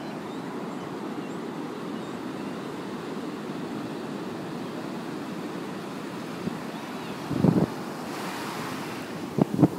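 Ocean surf washing steadily onto the beach, with wind on the microphone and a brief gust buffeting it about seven and a half seconds in.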